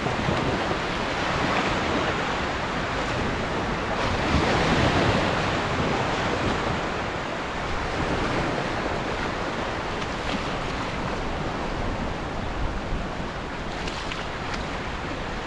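Small waves breaking and washing up a sandy beach in a steady rush that swells and eases, with wind buffeting the microphone.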